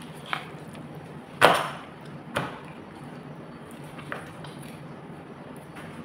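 Raw chicken being cut with a kitchen knife on a plastic cutting board: about four short sharp knocks, the loudest about a second and a half in.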